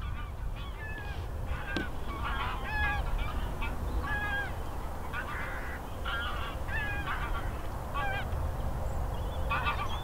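Geese honking, many short calls following each other every second or so, over a low rumble of wind on the microphone.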